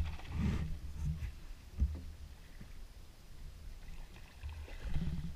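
Water lapping against the hull of a small flats skiff drifting across a shallow marsh, a low uneven rumble with soft swells. One short sharp knock sounds about two seconds in.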